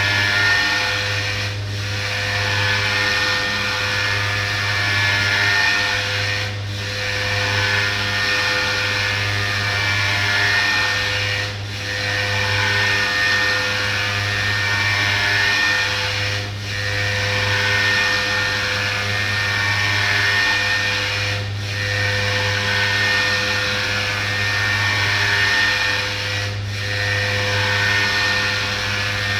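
CNC orthopedic milling machine's spindle running and cutting with a steady, high-pitched power-tool whine over a low hum. The noise dips briefly about every five seconds.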